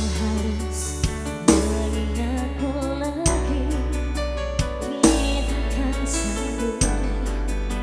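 Band music with a heavy, steady bass and a wavering melody line over layered instruments, punctuated by strong drum hits about every two seconds.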